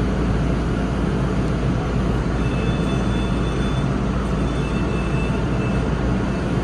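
R142 subway car running on elevated track, heard from inside the car: a steady, even rumble of wheels on rails, with faint high-pitched tones coming and going in the middle.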